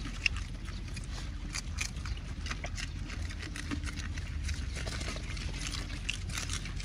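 Several pigs chewing fresh water spinach, with many quick, irregular crisp crunches of the tender stems.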